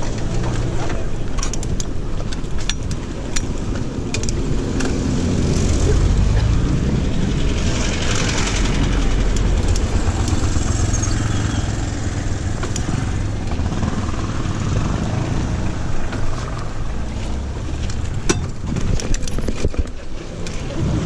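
Wind rushing over the microphone of a camera worn by a cyclist riding a mountain bike along a road, with scattered sharp clicks and rattles. The rush swells louder from about six to ten seconds in.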